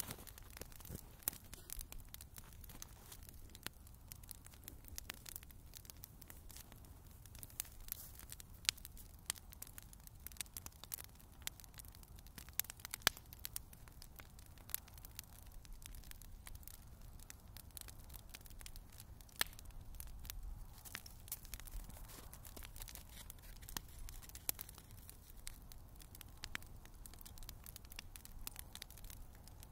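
Wood bonfire crackling, with irregular sharp snaps over a faint low rumble.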